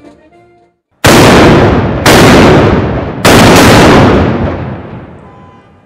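Three very loud cannon shots from HMS Victory's guns, the first about a second in, then roughly a second apart. Each is followed by a long rumbling echo that dies away over a couple of seconds after the last shot.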